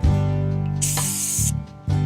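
Background music with strummed acoustic guitar. A short burst of high hiss lasts just under a second, starting about a second in.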